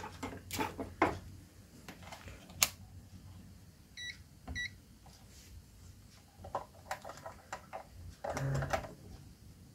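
Two short beeps from a ZOYI ZT101 digital multimeter as its select button is pressed, about four seconds in. Around them come clicks and taps of the meter and its test leads being handled.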